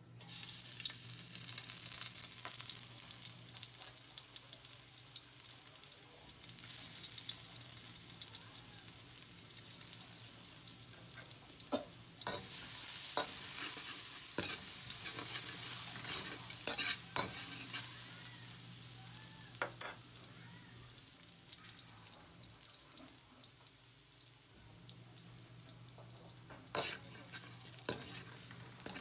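Minced garlic sizzling in hot oil in a metal wok. The sizzle starts suddenly as it goes in and runs on, with a metal ladle stirring and scraping and clinking sharply against the wok now and then.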